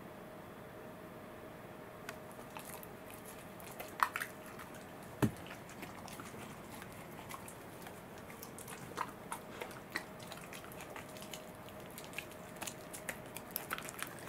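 Welsh corgi chewing and biting a peeled banana taken from a hand: a scatter of small mouth clicks, with two louder snaps about four and five seconds in.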